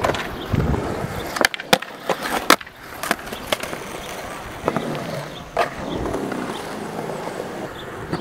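Skateboard wheels rolling on concrete, with several sharp clacks of the board hitting the ground, the loudest about two and a half seconds in.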